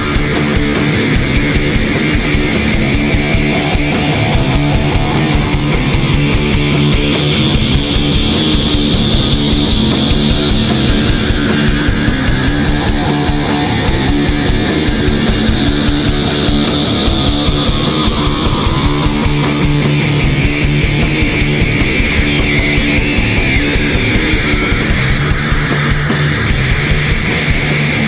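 Loud rock music with guitar and a steady beat.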